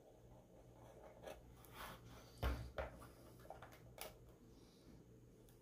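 Quiet handling noises from a subwoofer cone being turned over in the hands: a few soft knocks and rubs, the loudest a thump about two and a half seconds in, over a low steady hum.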